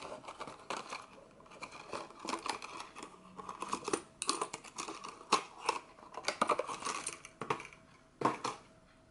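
A clear plastic keychain case being flexed and opened by hand: irregular crinkles, scrapes and small clicks of the stiff plastic.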